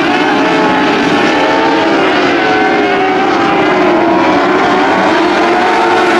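Pack of motorcycle-engined dwarf race cars racing around a dirt oval: several engines running at once, their pitches rising and falling as they rev through the turns and straights.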